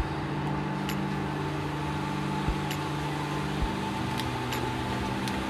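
Portable induction cooktop humming steadily under a frying pan of cauliflower stir-fry, which sizzles gently, with a few light knocks and clicks of the pan and spatula.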